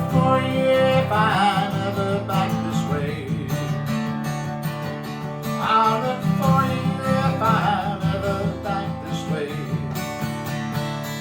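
Acoustic guitar strumming the instrumental outro of a folk song. A wavering melody line rises over the chords now and then, and the playing eases off slightly near the end.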